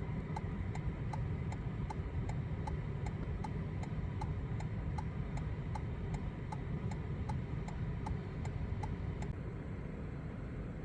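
Inside a car, a steady low engine and road rumble with a turn-signal indicator ticking evenly, about three ticks a second; the ticking stops about nine seconds in.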